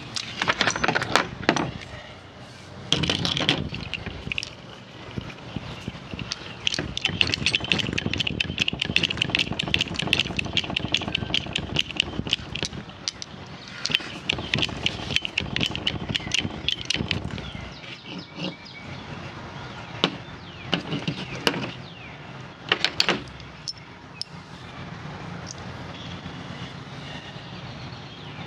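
TEMCo hand-operated hydraulic cable lug crimper being worked to crimp a lug onto 2 AWG battery cable: runs of rapid metallic clicking and rattling, with a few separate knocks.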